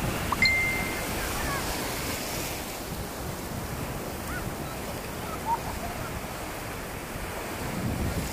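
Surf breaking and washing up a sandy beach in the shallows: a steady rush of waves and foam. A short high tone sounds once about half a second in.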